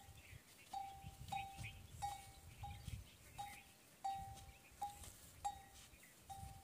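A small metal livestock bell clinking at an uneven pace as the animal walks, about ten short strikes on the same note, each ringing briefly.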